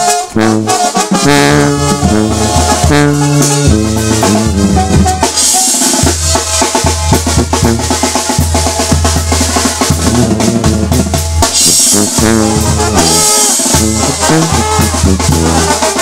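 Sinaloan banda playing live: trombones and trumpets over a tuba bass line, with congas and a drum kit. The drums and cymbals grow denser from about five seconds in.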